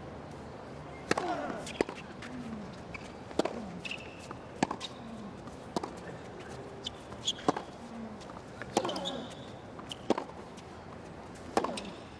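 Tennis point in play: sharp racquet-on-ball strikes about every one to one and a half seconds, some followed by a player's short grunt, over a steady crowd hum.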